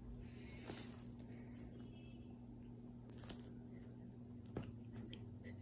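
A cat batting at and grabbing the dangling lure of a wand toy: a few faint, short taps and rustles, with one brief faint high tinkle around two seconds in.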